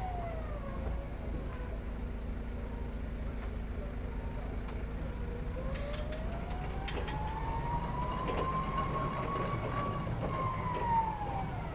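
Jungheinrich ETV 214 electric reach truck driving, its electric drive whining. The whine dips in pitch about a second in, climbs steadily for several seconds as the truck picks up speed, then falls again near the end as it slows.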